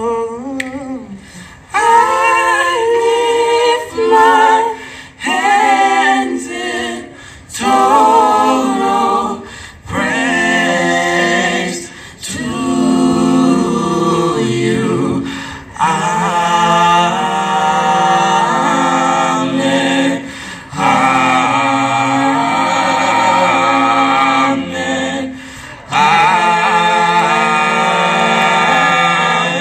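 A cappella vocal group of mixed male and female voices singing in harmony into microphones, in phrases a few seconds long broken by brief pauses.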